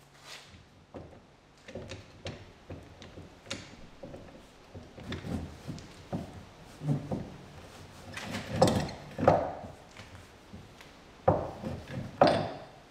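Irregular metal clunks and knocks from a slide-hammer hub puller and the old front wheel hub bearing it is drawing out of the steering knuckle, the bearing coming free. The knocks come unevenly, the loudest few in the second half.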